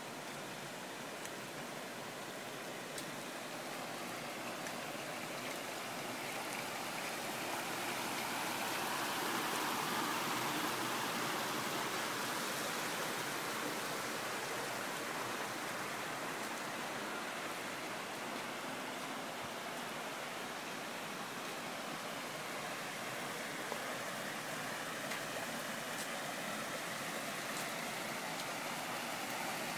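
Water cascading over the boulders and stone spillways of a garden waterfall into a pool: a steady rushing splash. It grows louder about a third of the way in, then eases back slightly.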